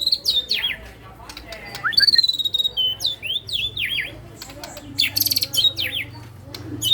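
White-rumped shama singing a varied, loud song of whistled phrases: quick falling slurs, a held whistle about two seconds in, and a fast rattling trill around the five-second mark. The bird is in full song shortly after its molt.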